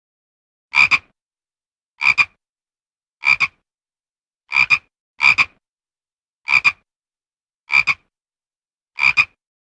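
A frog croaking: eight short calls, each a quick double note, repeated at a steady pace of about one every second and a quarter.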